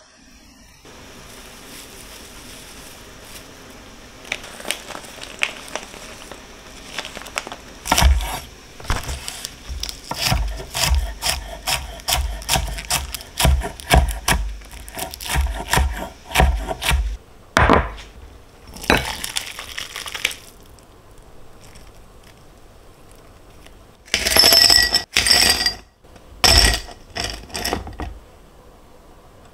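Kitchen handling sounds: a run of irregular knocks and taps on wood and dishes, with a few short scraping or rustling bursts near the middle and end.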